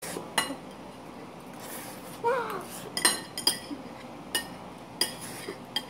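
Forks and spoons clinking against plates as two people eat: several sharp, ringing clinks spaced irregularly, with a brief vocal sound in the middle.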